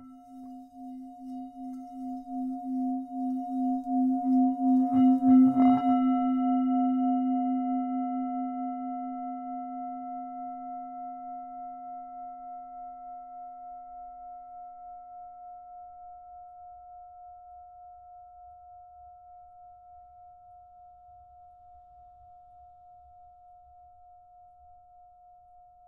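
Singing bowl rubbed around its rim, swelling into a pulsing hum of two tones for about five seconds. It is then struck once and left to ring out slowly, the low tone fading first and a higher tone lingering.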